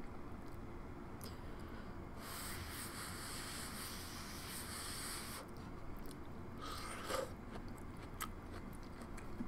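Close-miked eating sounds: chewing a mouthful of cheesy corn, with a few small clicks and a noisy stretch of about three seconds from about two seconds in.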